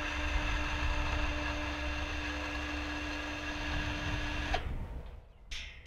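Electric motor of an automatic swing-gate opener running as its arm pushes the gate closed: a steady motor hum that cuts off about four and a half seconds in when the gate stops.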